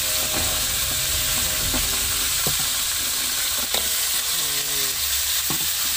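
Mud crabs frying in hot oil in a wok, sizzling steadily, with a few light clicks.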